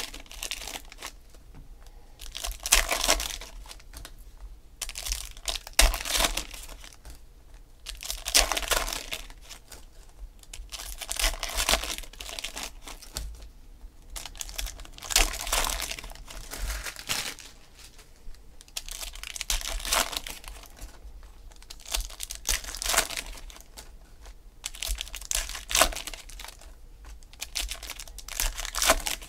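Foil wrappers of Panini Select football card packs being torn open and crinkled by hand, in repeated crackly bursts every two to three seconds.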